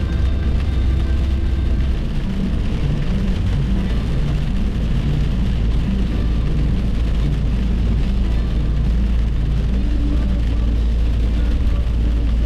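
Steady road and engine noise heard from inside a car cruising on a highway, a constant low rumble with a hiss of tyres over it.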